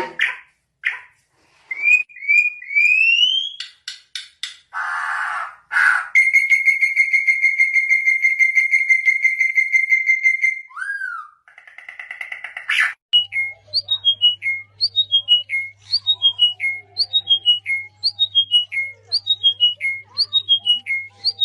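Songbird singing a varied run of whistles: short notes and rising slides, one long steady whistled note held for about four seconds, then the same falling whistled phrase repeated more than a dozen times. A faint steady hum comes in about halfway through.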